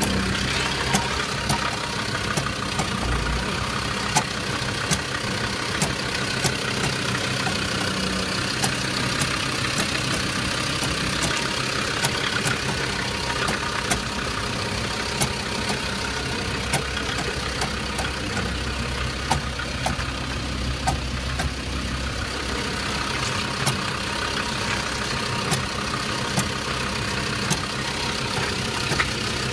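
Land Rover Discovery 2 idling, with sharp clicks or knocks that recur irregularly about once a second over the steady running. The clicks are an unidentified strange noise that the owner is asking about.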